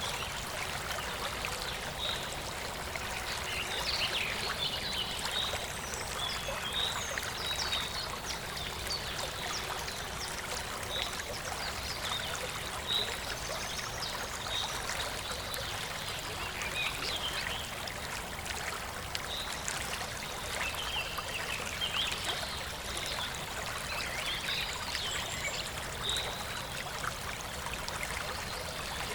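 Birds chirping and calling in short, repeated notes over a steady rushing sound of flowing water.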